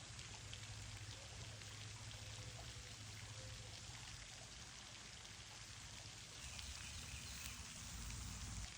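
Faint steady background noise: an even hiss over a low hum, with no distinct events.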